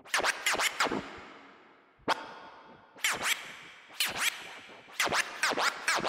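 Scratching on a Pioneer DJ media player's jog wheel, quick back-and-forth pitch sweeps in short groups about once a second. The sound runs through a Behringer DR600 digital reverb pedal, so each group trails off in a fading reverb tail.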